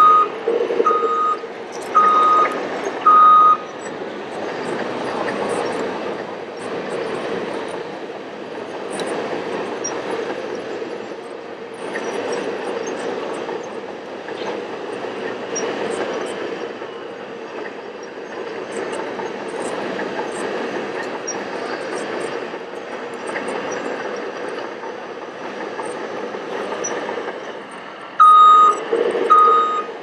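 Reverse-alarm beeping from a radio-controlled bulldozer model's sound module. There are four beeps about a second apart at the start and two more near the end, over a steady drone.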